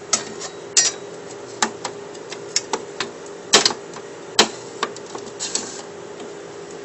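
Irregular sharp clicks and knocks of plastic and metal parts as the envelope feeder's grey guide plate is handled and fitted back onto the feed deck, over a steady low hum.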